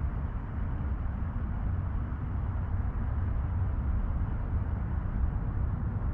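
Steady low outdoor rumble with a fainter hiss above it, flickering constantly but with no distinct events.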